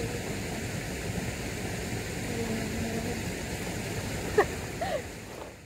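Steady rushing noise of a swollen river flowing past. About four seconds in, a brief sharp squeak falling in pitch is followed by a short faint chirp. The sound fades out near the end.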